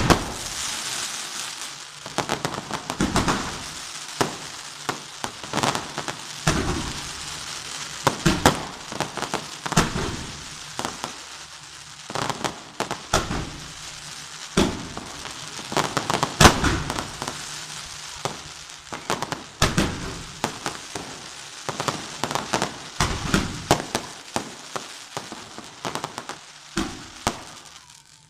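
Fireworks going off from a bell tower: sharp bangs at irregular intervals, about one a second, over the steady hiss and crackle of spark fountains. The hiss and bangs thin out near the end.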